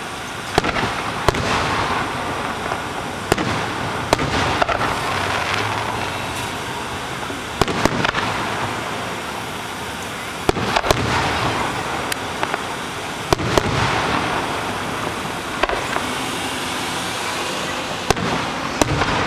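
Fireworks display: a run of sharp bangs from shells bursting, some singly and some in quick clusters of two or three, over a continuous crackling hiss.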